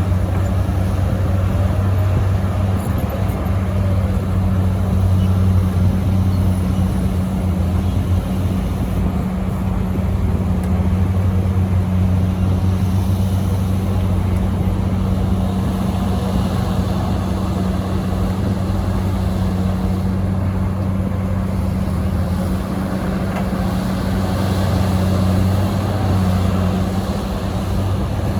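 Heavy diesel engine running steadily with an even, low hum that holds its pitch.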